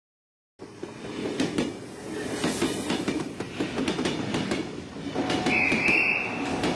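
Passenger train running on the rails: a steady low rumble with irregular clicks of the wheels over the track. About five seconds in, a high wheel squeal rises for over a second.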